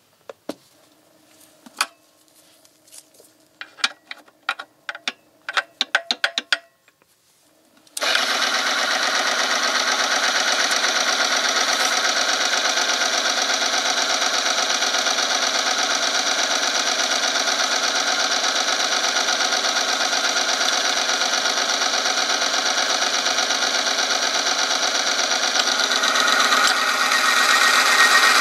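A few clicks and knocks as the oil tester's lever arm and temperature probe are set in place. About eight seconds in, the electric motor of the lever-loaded oil film tester starts and runs steadily, its rotating steel ring rubbing against the test sample in hot engine oil with a constant metallic friction noise. The noise gets louder near the end.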